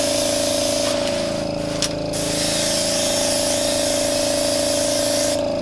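Airbrush spraying a light coat of paint onto a leather sneaker in a steady hiss, over a steady hum. The hiss thins briefly about a second in and again near the end.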